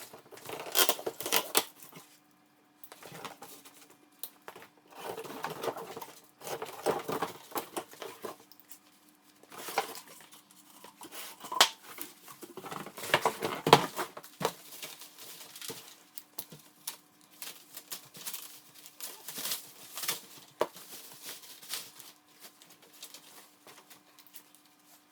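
Cardboard shipping box being torn open and its packaging handled: irregular ripping, scraping and crinkling noises, with a steady low hum behind.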